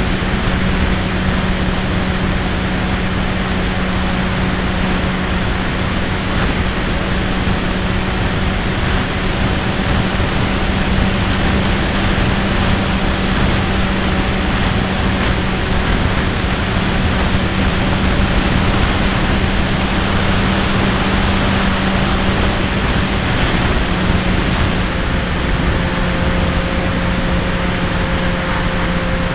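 Irvine 53 two-stroke glow engine of a Hangar 9 Pulse XT 40 model plane running at a steady pitch in flight, heard from the wing with heavy wind rush over the microphone.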